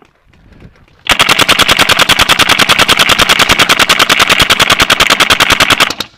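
Spyder E-MR5 electronic paintball marker firing on full-auto: an unbroken, evenly spaced stream of sharp pops, roughly a dozen or more a second, lasting about five seconds and then stopping suddenly. It is cover fire to pin opponents down.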